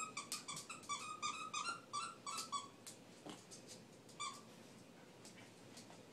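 Rubber squeaky dog toy squeaked rapidly as a small dog chews it, about four short squeaks a second, then stopping after about two and a half seconds, with one more squeak about four seconds in.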